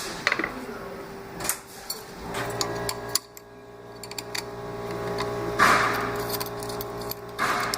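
Metal parts of a Juki LK-1900A bar-tack machine being handled while its clamp and feed plate are changed: scattered clinks and knocks over a steady hum.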